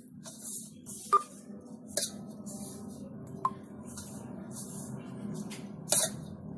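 A hand rubbing and pressing crumbly flour-and-ghee dough in a steel bowl, a gritty scrunching about twice a second, with four sharp clinks against the steel bowl, over a steady low hum.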